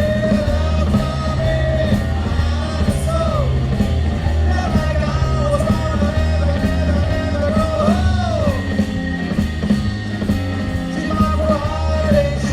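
Live blues band playing: a singer's lead line over electric bass, guitar and drums keeping a steady beat.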